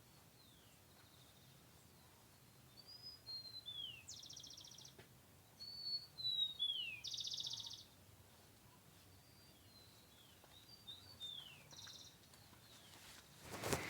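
Birds calling: a series of short, falling whistled notes, with three brief buzzy trills among them. Just before the end, a sudden rush of noise starts.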